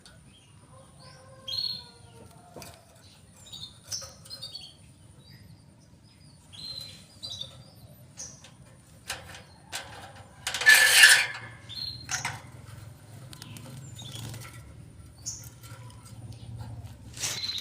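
Canary giving short, high chirps every second or so, with a loud, brief rustle about ten and a half seconds in.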